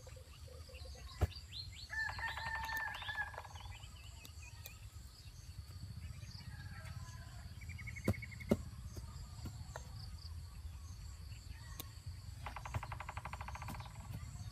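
Birds calling, including two short bursts of rapid trilling calls, one about two seconds in and one near the end, with scattered chirps. Under them is a low rumble, and a few sharp clicks come about a second in and twice around eight seconds.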